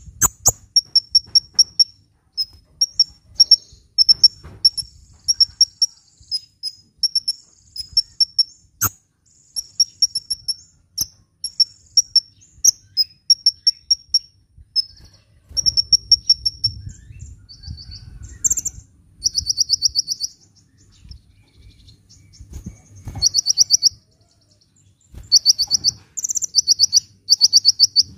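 A sunbird singing a rapid, high-pitched series of short chirps. It breaks into fast trills of quickly repeated notes about two-thirds of the way through and again near the end.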